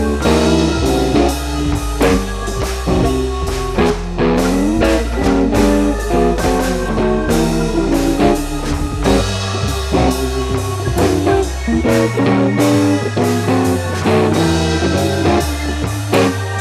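Background music: plucked guitar over bass and a steady drum beat, in a bluesy rock style.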